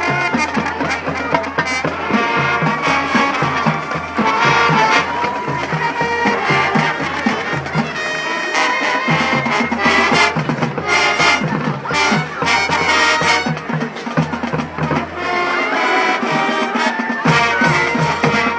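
High school marching band playing: trumpets and trombones carry the tune over the drumline's steady beat.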